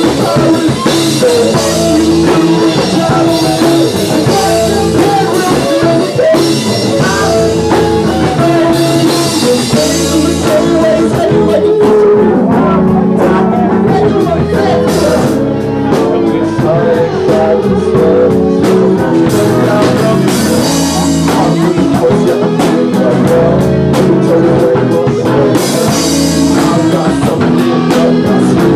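Live rock band playing with guitar and drum kit. The cymbals wash heavily through the first ten seconds, thin out to sharper drum strokes in the middle, and return near the end.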